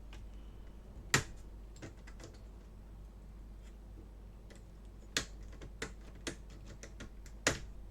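Scattered sharp clicks and taps of a small hand tool working a circuit board free from a laptop's plastic chassis: a loud click about a second in, a run of lighter clicks from about five seconds, and another loud click near the end.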